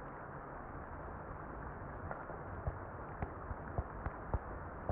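Muffled rain: a steady dull hiss with scattered sharp clicks of drops that grow more frequent from about halfway in.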